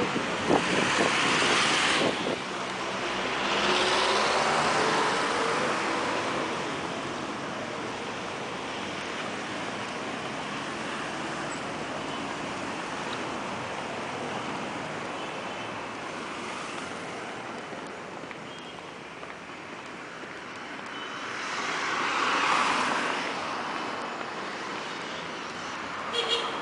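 City street traffic: a steady rush of cars on the road, swelling and fading as vehicles pass close by, most loudly at the start, around four seconds in and again a little before the end.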